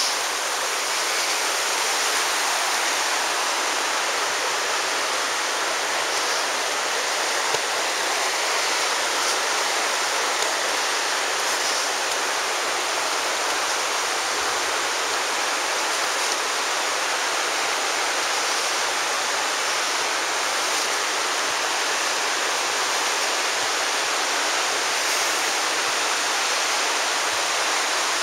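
Steady rush of the Virgin River's flowing water.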